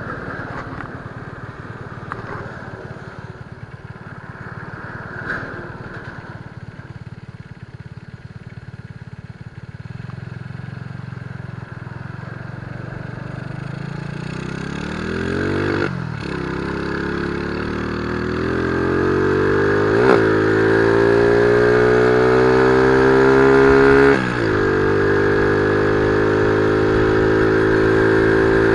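The single-cylinder four-stroke engine of a 122cc Honda C70 Cub, fitted with an Espada racing camshaft and a re-tuned carburettor, pulling hard from low speed. Its pitch climbs steadily, with a brief dip at each upshift about 16, 20 and 24 seconds in, and ends revving high and steady. Wind on the microphone at first.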